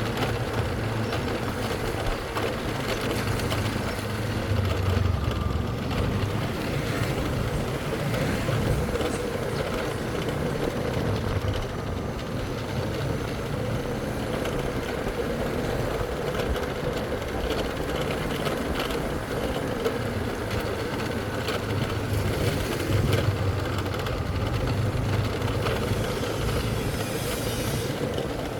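Motorcycle engine running steadily while riding, over a constant rush of wind and road noise.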